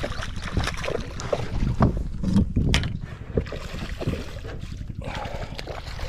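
Hooked largemouth bass splashing at the water's surface as it is reeled in beside a fishing kayak, with wind on the microphone and a few sharp knocks.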